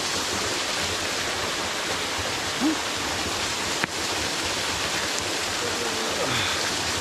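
Small waterfall spilling onto a rocky brook, a steady, even rush of falling water.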